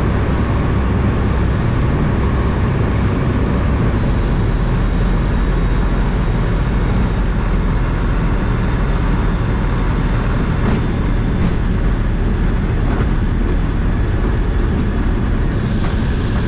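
Ikarus C42 ultralight's Rotax engine running at low power, with propeller and rushing-air noise as heard inside the cockpit during landing rollout. The high hiss of the air thins about four seconds in, and a few light knocks come near the end.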